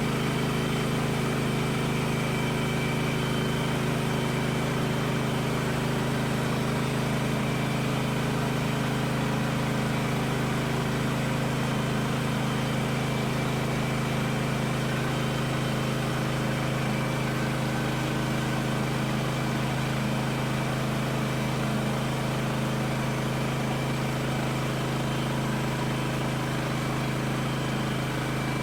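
Gas engine of a Woodland Mills HM130MAX bandsaw mill running steadily at an even pitch and level while milling a log into beams.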